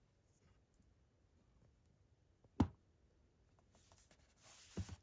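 Faint handling noise from a Blu-ray steelbook case: one sharp tap or knock about halfway through, then a brief rustle with two light knocks near the end.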